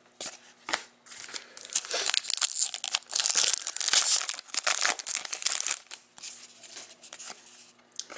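Foil wrapper of an Upper Deck SP Authentic hockey card pack crinkling as it is torn open by hand, loudest in the middle and easing off after about six seconds, with a few light clicks of cards being handled at the start.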